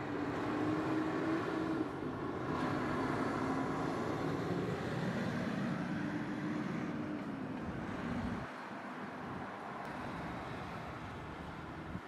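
A motor vehicle's engine running, a steady low hum with a faint held tone. Its low rumble cuts off abruptly about eight and a half seconds in, leaving a softer hiss.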